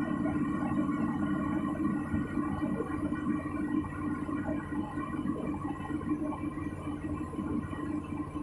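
Excavator's diesel engine and hydraulics running steadily, a constant drone with several steady tones, heard from inside the cab.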